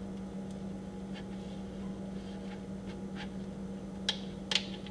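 Fingers pressing a filled wonton wrapper closed on a metal sheet pan: faint soft taps and rustles, then two sharper clicks near the end, over a steady low hum.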